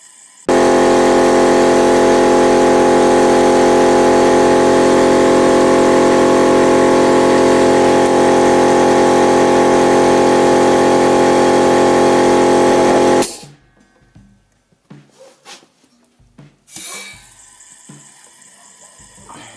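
Air compressor switching on and running steadily and loudly for about thirteen seconds, then cutting off abruptly. It is pumping air into the combustion chamber through an adapter in the spark-plug hole, holding the valves shut while the valve keepers are removed. A few faint knocks follow near the end.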